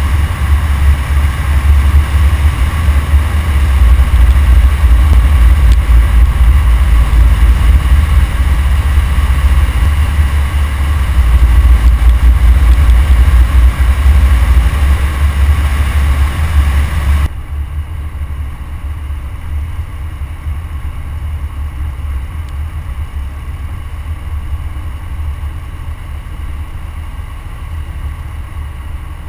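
Wind buffeting and road noise from a car driving at highway speed, heard by a camera mounted at the front grille: a heavy low rumble with a steady rush over it. About 17 seconds in, the noise drops suddenly to a quieter, steadier rush.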